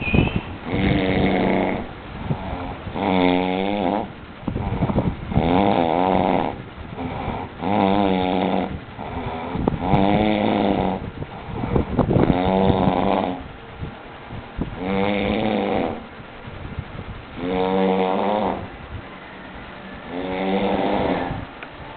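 A drunk man snoring heavily in his sleep. There are about nine long snores, each roughly a second long with a wavering, rattling pitch, coming every two seconds or so.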